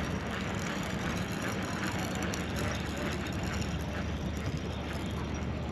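A steady low mechanical hum, like a running engine, under an even hiss.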